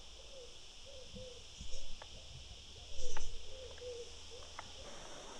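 A steady high-pitched insect chorus shrilling without a break. A soft, low warbling call repeats several times a second under it. Two brief louder rustles come about two and three seconds in.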